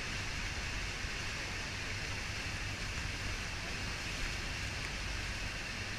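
Steady rush of falling water and spray from Niagara Falls, an even hiss over a low rumble.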